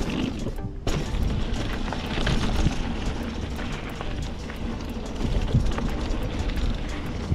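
Wind buffeting the microphone and the rattle and knocking of a full-suspension mountain bike rolling fast down a bumpy dirt trail, with a louder knock about a second in.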